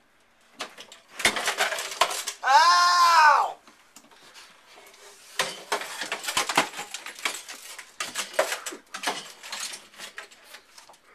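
Metal frame and console parts of a broken home treadmill clanking and clinking as they are handled, in a run of sharp knocks and rattles. A loud wail that rises and then falls in pitch comes about two and a half seconds in.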